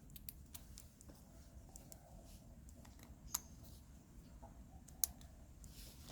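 Faint handling noise with scattered small clicks, two sharper, louder clicks about three and five seconds in, like a small plastic object being handled.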